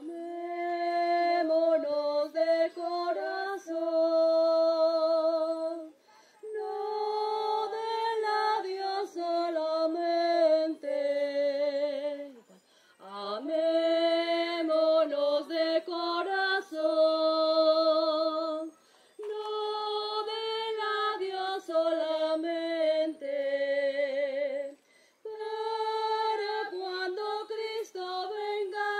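A single high voice singing a communion hymn, with long held notes and vibrato, in phrases of a few seconds broken by short pauses.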